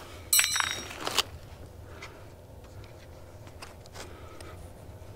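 Handling noise from laying out insulation and gear: a loud crinkling rustle with a light metallic ring about half a second in, lasting under a second, then faint scattered rustles and clicks.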